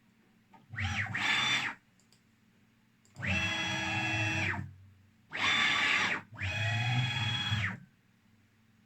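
DIY CNC router's axis motors moving the machine in a series of about five short moves during a probing routine. Each move is a whine that climbs in pitch as the axis speeds up, holds, then drops as it slows to a stop, with pauses between.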